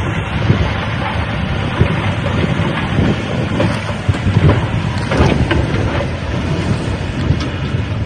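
Heavy diesel earthmoving machinery working: a loud, dense rumble that runs unevenly, with louder spurts about halfway through.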